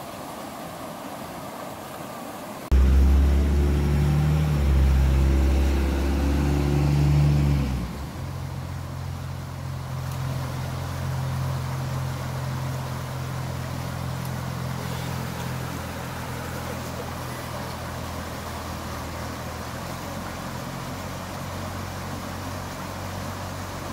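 A motor vehicle's engine hum comes in suddenly about three seconds in, loud for a few seconds, then settling to a steady lower drone, over the steady rush of river water over a riffle.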